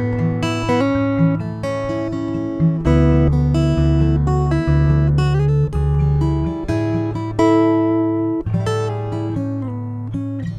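Acoustic guitar picked note by note, a melody over held bass notes, heard through a Skysonic Pro-1 soundhole pickup.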